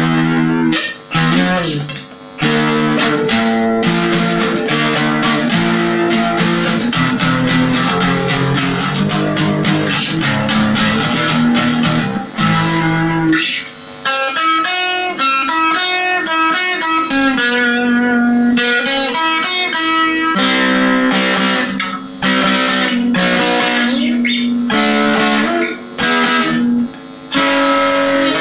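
Acoustic-electric guitar played through a mini guitar amplifier fitted with a larger replacement speaker: strummed chords for about the first half, a picked melody of single notes, then strumming again near the end. The player says it now plays louder without the buzzy, cracked tone of the original small low-watt speaker.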